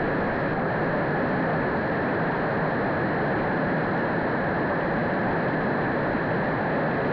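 Mountain river or stream running over rocks: a steady, unbroken rush of water.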